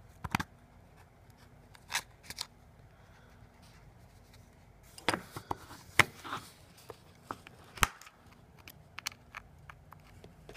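Scattered small clicks, taps and scrapes of hand tools working on an iPhone 6 while its screen is being pried away from the frame, with a busier run of clicks about halfway through and two sharper clicks shortly after.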